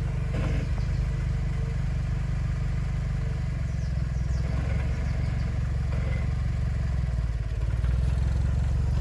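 Jeep Wrangler engine running steadily and low as the vehicle pulls forward in first gear.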